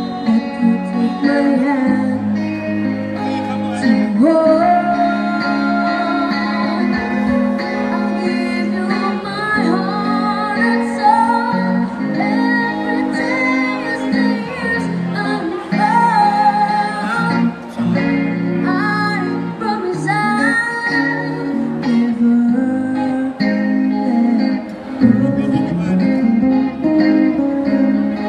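A child's voice singing a song through a microphone, accompanied by two electric guitars, one strumming chords and one adding lead lines.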